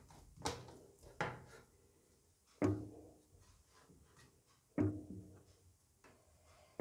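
Chef's knife knocking on a wooden cutting board as it is pressed down through a slab of halwa: about five sharp knocks at uneven intervals, each with a short dull ring.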